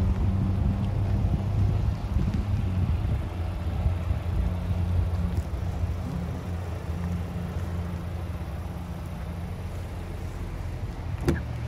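Steady low hum of a 2024 Chevrolet Equinox's 1.5-litre turbocharged four-cylinder idling while parked. Near the end there is a sharp click as the driver's door is opened.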